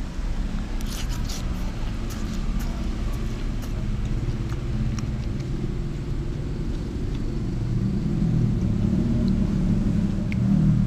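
Low rumble of a motor vehicle's engine, growing louder near the end and dropping away sharply at the very end, with a few light clicks about one to three seconds in.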